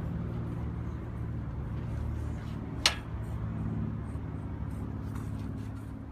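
Steady low mechanical hum, with a single sharp click about three seconds in.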